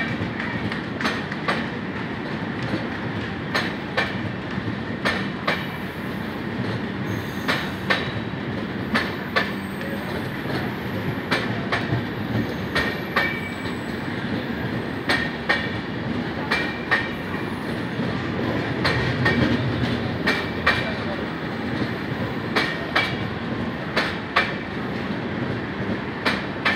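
Passenger coaches of an express train rolling past, their wheels clacking over rail joints, often in quick pairs, over a steady rumble. Brief high wheel squeals come and go.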